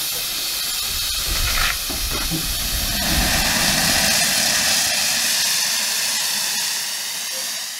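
Steam hissing hard as it blows out from beneath the front of a 1914 Stanley 812 Mountain Wagon steam car. It is loudest in the middle and tails off near the end.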